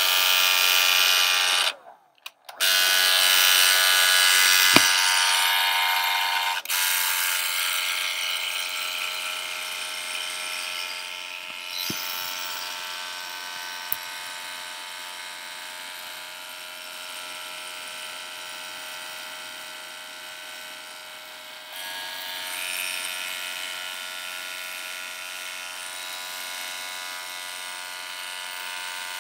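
Handheld electric dryer running, a steady whine of motor and fan with rushing air, blown over wet watercolor paint to dry it. It cuts out for a moment about two seconds in, then runs on, its level shifting as it is moved over the paper.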